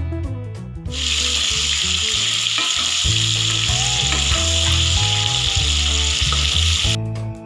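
Raw mango pieces sizzling in hot mustard oil in an aluminium kadai as they are stirred with a wooden spatula. The sizzle starts suddenly about a second in and cuts off abruptly near the end.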